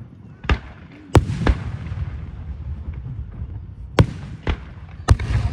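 Fireworks bursting overhead: six sharp bangs at uneven intervals, each trailing off in a low rumbling echo, the loudest about a second in and near the end.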